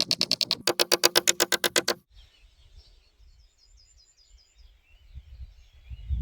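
A loud, rapidly pulsing sound of about ten pulses a second cuts off abruptly about two seconds in. Faint bird chirps follow over a low rumble.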